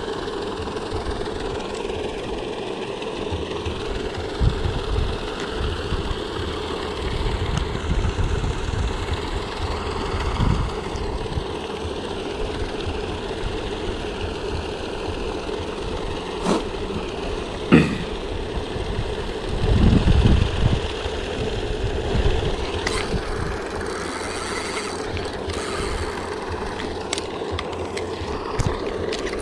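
Paddlewheel pond aerators running, a steady motor hum over the churning of water. A few sharp clicks and knocks stand out a little past halfway and again near the end, with a short low rumble in between.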